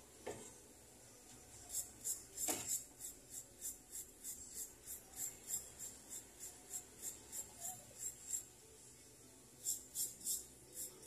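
Hand filing of a small piece of gold jewellery: quick, even back-and-forth rasping strokes, about three a second, that stop briefly and pick up again near the end. A sharp knock just at the start and another about two and a half seconds in.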